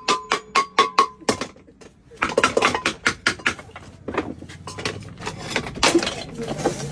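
Quick, evenly spaced hammer blows on a metal cooking pot, about five a second, each ringing briefly. They stop about a second in. After a short pause comes a denser run of metal clattering and knocks, then scattered knocks.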